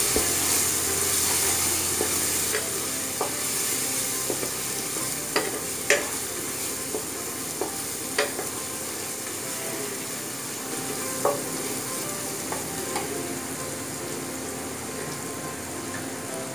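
Onion, ginger and garlic paste sizzling in hot mustard oil while being stirred with a spatula, which scrapes and taps against the metal pot every so often. This is the masala being mixed and fried.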